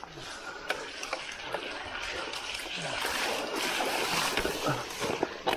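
Mountain bike tyres rolling through mud and shallow puddles, splashing steadily, with sharp clicks and knocks from the bike jolting over the rough, rutted ground. The splashing swells in the middle, and a few louder knocks come near the end.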